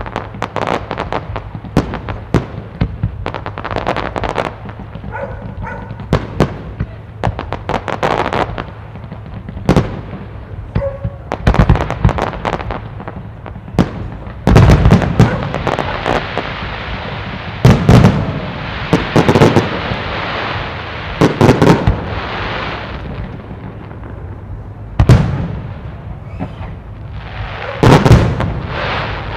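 Aerial fireworks shells bursting: a quick run of sharp reports in the first half, then heavy, deep bursts a few seconds apart. A crackling hiss fills the gaps between the bursts in the second half.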